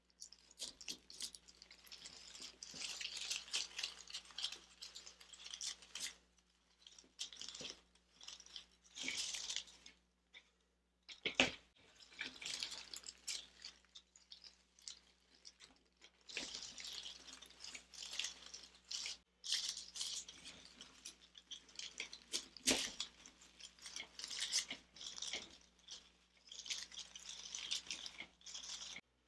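Artificial flower stems and plastic leaves rustling and crinkling as they are worked into a grapevine wreath, in irregular spells with short pauses. Two sharp clicks stand out, the louder about a third of the way in.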